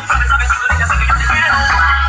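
Music with a heavy, deep bass line in long held notes and a busy melody above it.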